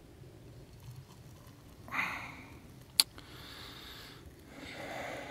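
Hot water poured from an aluminium camping kettle into a metal mug of coffee, with a single sharp clink about three seconds in.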